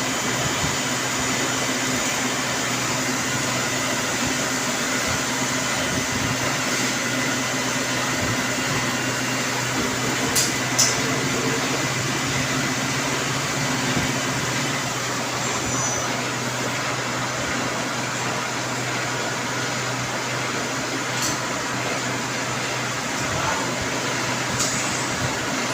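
CNC machine running with a steady mechanical hum, with a few short clicks about ten seconds in and again near the end.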